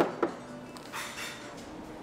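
A glass food-storage container set down on a wooden table: a sharp knock and a second click about a quarter second later, then softer handling noise as its snap-lock plastic lid is worked.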